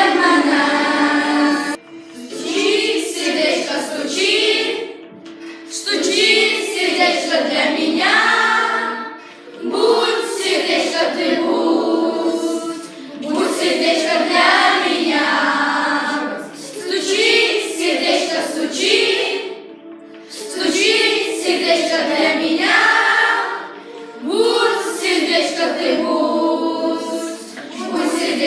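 A class of children singing a song in Lithuanian together, in phrases of a few seconds with short breaks between them.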